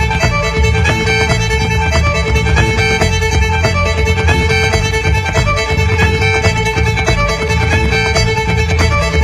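Background music led by a fiddle, with a strong, steady low end.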